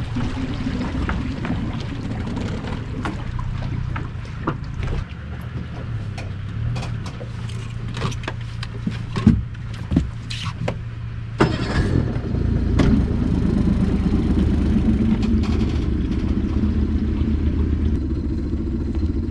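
Motor-vehicle engines running at idle: a steady low engine hum, with scattered sharp clicks and knocks through the middle. About two-thirds of the way in, a louder, fuller engine rumble takes over.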